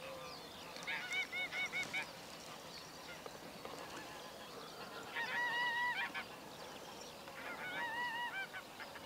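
Geese honking faintly: three short runs of repeated honks, about a second in, around five seconds in and again near eight seconds.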